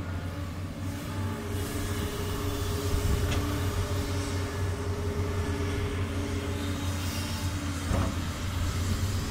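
Doosan DX200 excavator's diesel engine running steadily as it works, with two short knocks, about three seconds and about eight seconds in.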